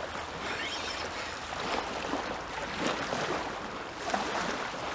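Shallow water sloshing and small waves lapping at a sandy shoreline, a steady wash with a few faint splashes.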